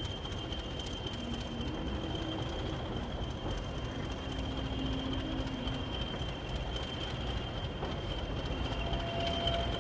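A pair of class 20 diesel-electric locomotives running as they haul a merry-go-round train of HAA coal hopper wagons at low speed, the wagons rolling along the track behind them as a steady rumble. A steady high-pitched whine runs throughout.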